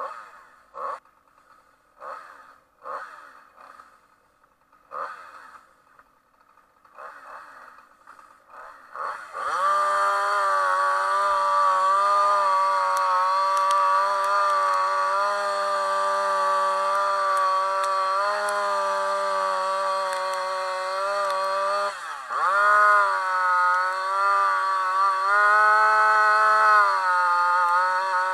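Sharp strikes of a tool sounding a shingle roof, about one a second. Then, about nine seconds in, a gas-powered saw starts cutting a ventilation hole through the roof, running steadily at high revs, dropping briefly about two-thirds of the way through and revving up again.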